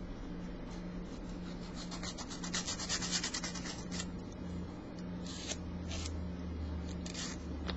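Nail file sanding the surface of a cured gel fingernail: scratchy back-and-forth strokes, a quick run of them through the middle, then a few separate strokes near the end.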